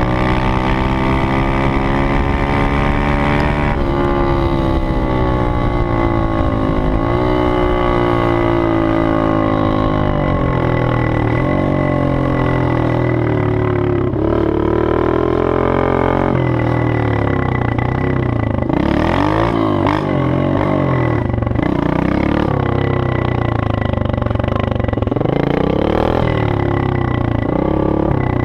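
Pit bike's tuned Honda-type 110cc single-cylinder four-stroke engine, with a 24 mm carburettor and an emptied-out exhaust, running under load as the bike rides. Its pitch climbs and drops back several times in the first half as it goes up through the gears, then it runs unevenly, rising and falling, in the second half.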